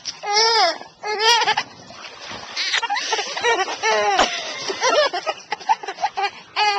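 A baby giggling: a string of short, high-pitched laughs, each gliding up and down in pitch.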